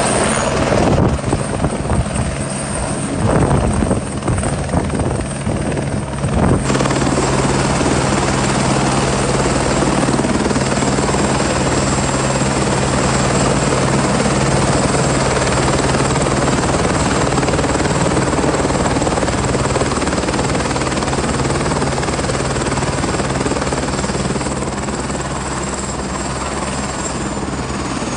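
Turbine helicopter running on the ground with its rotor turning: a steady low beat with a steady high turbine whine. The sound jumps abruptly a couple of times in the first few seconds and eases slightly near the end.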